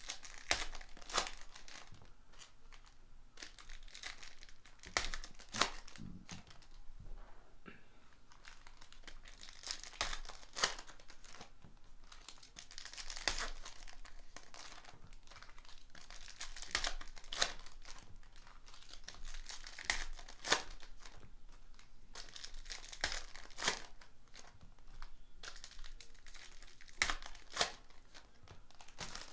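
Silver foil wrappers of 2018 Panini Prizm football card packs being torn open and crinkled by hand, one pack after another, in repeated short bursts of crackle.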